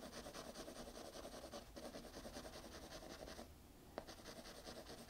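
Pencil shading on paper: fast, even back-and-forth strokes scratching faintly, with a short pause about three and a half seconds in, then a light tap as the pencil meets the paper again and the strokes resume.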